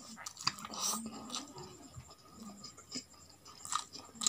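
Close-miked chewing of roast chicken and rice, with irregular wet smacks and clicks of the mouth.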